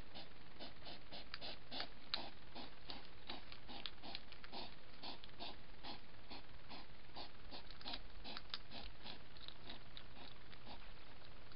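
Hedgehog making a rapid, rhythmic snuffling, about four to five puffs a second, which fades near the end.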